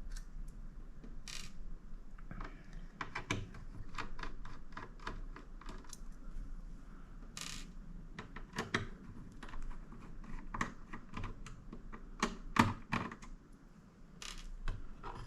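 Screwdriver work on the HP Elite Mini 800 G9's screws and metal case: a run of irregular light clicks and taps, with two brief scrapes and one sharper click near the end.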